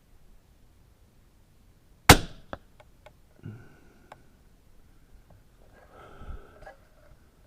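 A single rifle shot about two seconds in, sharp with a short ringing tail. Fainter clicks and short scraping metal sounds follow, around a second and again about four seconds after the shot.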